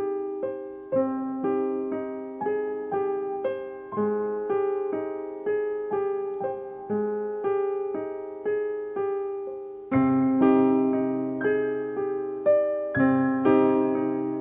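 Background piano music: single notes struck about twice a second in a slow, steady pattern, with lower notes joining and the music growing louder about ten seconds in.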